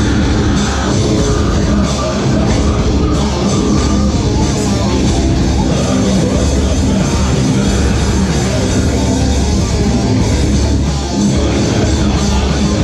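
A live heavy rock band playing loud: bass guitar, electric guitar and drum kit, with a vocalist on the microphone.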